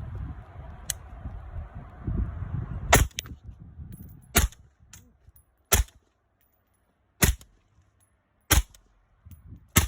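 Six suppressed 5.56 rifle shots from a 10.3-inch barrel fitted with an AAC 556-SD suppressor. They come at an even pace, one every second and a half or so, the first about three seconds in.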